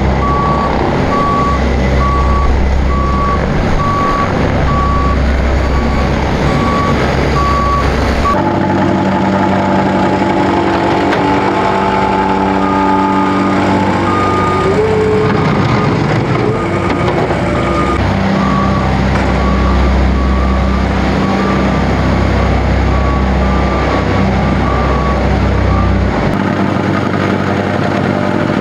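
Diesel paving equipment running: heavy engines with a reversing alarm beeping about once a second. The beeping stops about eight seconds in and comes back in the second half, with a brief rise in engine pitch in between.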